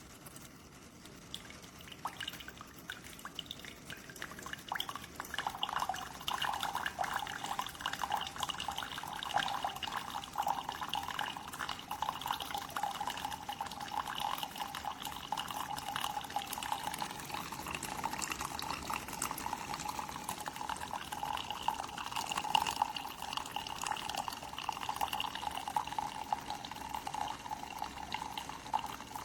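Keurig K-Express single-serve coffee maker dispensing brewed coffee, a steady stream of liquid running and splashing, building up over the first few seconds.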